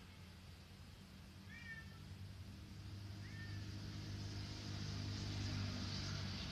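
Two short, high animal calls about a second and a half apart, over a low engine hum that grows steadily louder.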